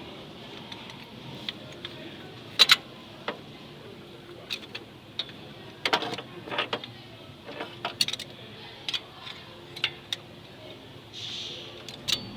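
Irregular sharp clicks and knocks, most likely tools and parts being handled during car repair work, loudest a double knock about two and a half seconds in, with a short hiss near the end.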